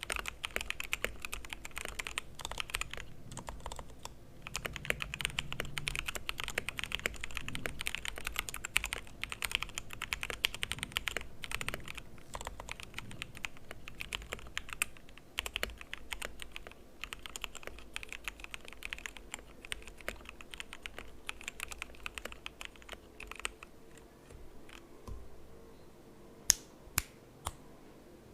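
Royal Kludge RK61 hot-swap mechanical keyboard with stock RK Red linear switches and a foamed case, typed on fast while it sits on a book: rapid keystrokes in bursts with short pauses. Near the end the typing thins out to a few sharp, louder single key presses.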